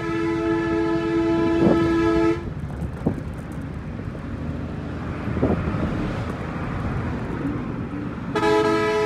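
A vehicle horn held steadily for about two and a half seconds, then sounded again near the end. Between the two blasts there is the engine and road noise of a moving motorcycle.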